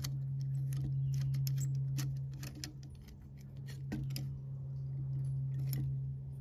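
Small metallic clicks and scrapes of the heating element's wire loop and terminal nuts being worked off the metal posts of an old Weller soldering gun by hand, scattered irregularly over a steady low hum.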